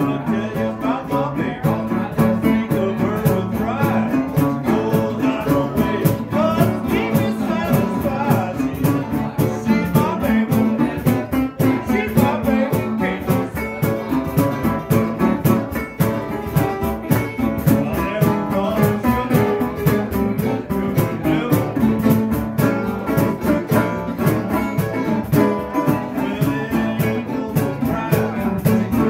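Live acoustic string band playing: resonator guitar and mandolin picking over a steady beat from a cajon.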